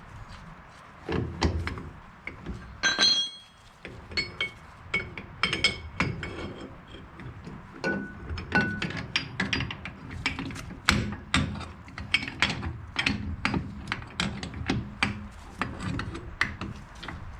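Metal clicks, knocks and clinks as a heavy-duty hub puller is fitted onto and worked against the rear hub of a 1962 M38a1 Willys Jeep, with a short metallic ring about 3 seconds in. The clicks run on irregularly, closer together in the second half.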